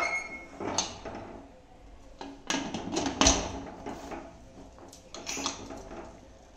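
Metal lid of a Prestige Deluxe pressure cooker being set on and locked shut: a series of clanks and scrapes, the loudest about three seconds in.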